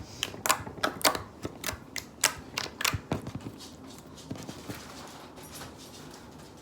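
Blue slime being squished and stretched by hand, making a run of sharp clicks and pops as air pockets burst, frequent for about three seconds and then fainter and sparser.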